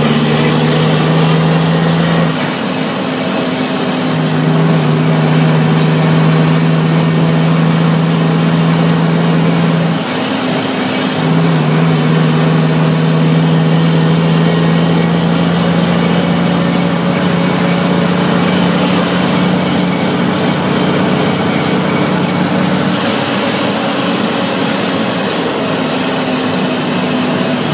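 Cummins L10 diesel engine of an International truck running under load, heard from inside the cab while driving. Its steady note breaks off briefly twice, about two and ten seconds in, at gear changes of the 10-speed transmission.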